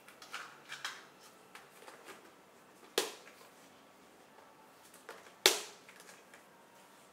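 A plastic lid handled with a few light clatters, then pressed onto a plastic food storage container full of rice, snapping shut with two sharp clicks about two and a half seconds apart, the second the louder.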